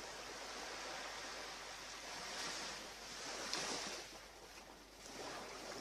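Surf washing onto a beach, a steady hiss that swells and ebbs a few times as waves come in.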